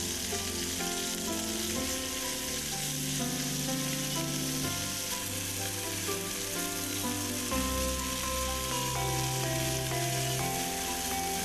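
Chicken pieces coated in spiced grated coconut frying in shallow oil in a pan, a steady sizzle, with background music underneath.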